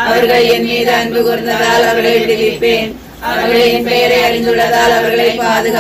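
Voices singing a devotional hymn in slow, drawn-out phrases, with a short break for breath about three seconds in.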